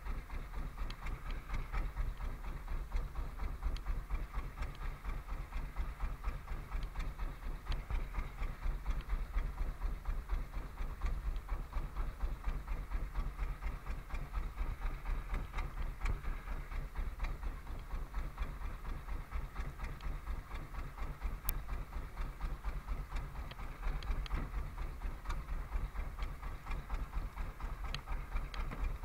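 Fishing boat's inboard engine running steadily, with a fast, even pulse.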